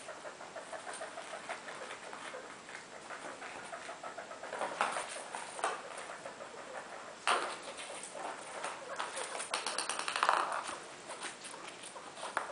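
Pet rats scrabbling on carpet as they nose and push a plastic ping pong ball, a light patter of small taps and scratches, with a few louder scuffles about 5, 7 and 10 seconds in.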